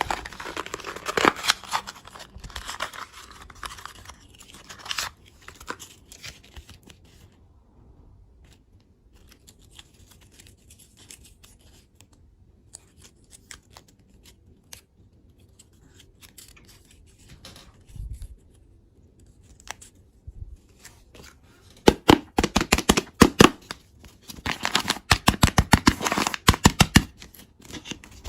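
Candy packaging being handled: plastic wrapper crinkling and tearing for the first few seconds, then a quiet stretch with a few small clicks, then two quick runs of rapid snipping or cutting strokes near the end.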